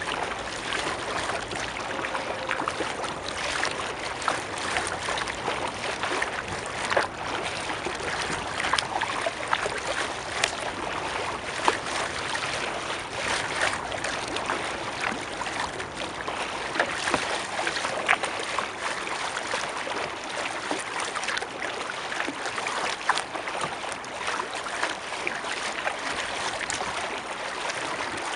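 Water splashing and lapping against a moving kayak's bow close to the microphone: a steady wash of water with many small, irregular splashes and drips.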